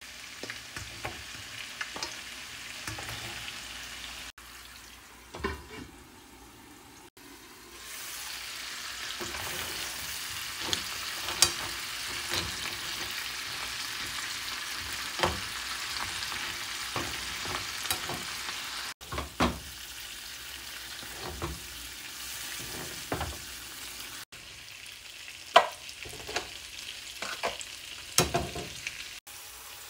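Butter and oil sizzling and bubbling in a frying pan as shell-on seafood pieces are turned in it with tongs, with scattered sharp clicks and knocks of the tongs and shells against the pan. The sizzle drops quieter for a few seconds early on, then carries on steadily.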